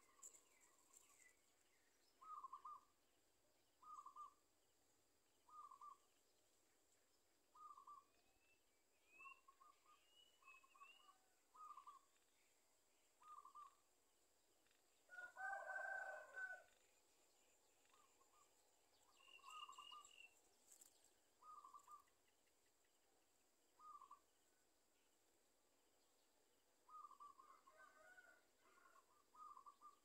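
Outdoor bird calls: a short note repeated over and over, about every one and a half to two seconds, with a few faint higher chirps. A rooster crows once in the background about halfway through.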